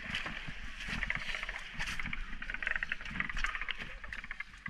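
Seawater splashing and sloshing close against the side of a small wooden boat, with a dense crackle of spray and bubbles over a low rumble.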